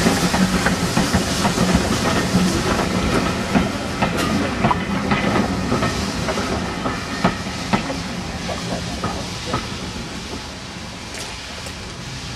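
Steam-hauled train of BR Mark 1 coaches moving away: wheels clicking over rail joints under a steady hiss of steam, slowly fading as the train recedes.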